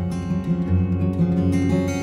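Background music with strummed acoustic guitar.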